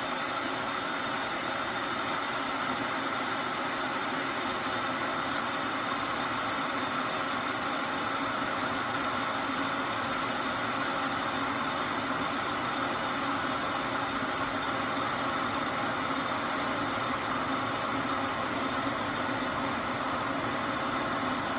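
Hamilton Beach 40930 glass electric kettle heating water towards the boil: a steady, even rushing hiss as the water nears boiling.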